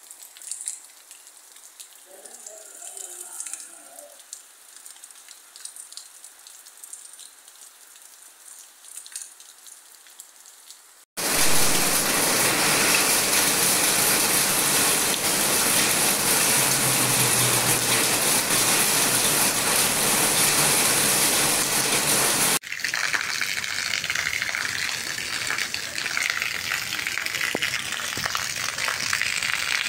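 Rain falling: soft, light rain at first, then abruptly about 11 seconds in a much louder heavy downpour, which drops suddenly to a softer steady rain about three-quarters of the way through.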